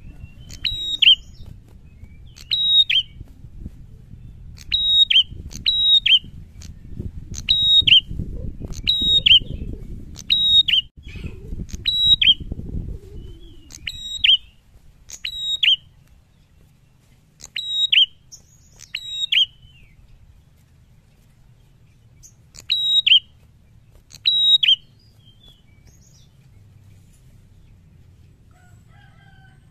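A caged prenjak songbird calling loudly: short, sharp, high notes, often in quick pairs, repeated about once a second, stopping for a few seconds near the end. A low rumbling noise sits underneath during the first half.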